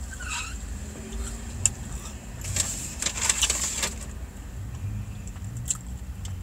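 Eating sounds: chewing and handling of waffle fries, with a crackling stretch about two and a half seconds in that lasts just over a second and a few sharp clicks, over a low steady rumble.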